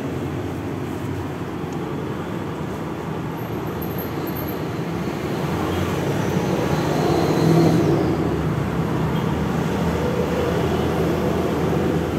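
Motor vehicle travelling steadily, with engine and road noise, growing a little louder past the middle.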